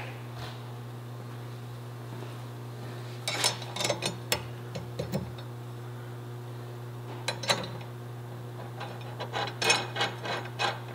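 Small metal clicks and scrapes in several short clusters as a bolt, washers and nut are fitted by hand to a steel nerf-bar mounting bracket, over a steady low hum.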